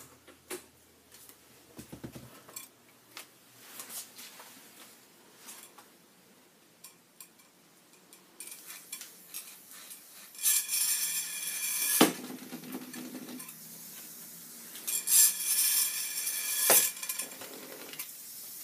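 Small DC motors of a light-following robot kit whirring in two bursts of about a second and a half, each ending in a sharp click, after a stretch of scattered light clicks and knocks.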